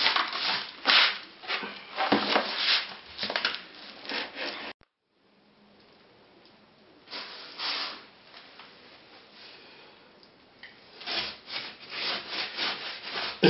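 Straw whisk broom sweeping dust and crumbled old tile adhesive off a bare concrete floor bed in quick scratchy strokes, cut off suddenly about five seconds in. Near the end, a damp sponge rubbing over the concrete to wet it before laying tile adhesive.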